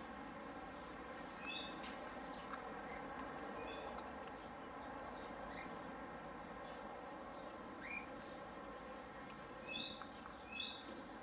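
Aviary birds giving short, high chirps in scattered small groups over a steady background hiss.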